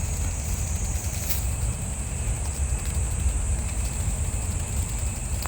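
Steady low wind rumble on the microphone, with insects trilling in one continuous high-pitched tone and a few faint clicks.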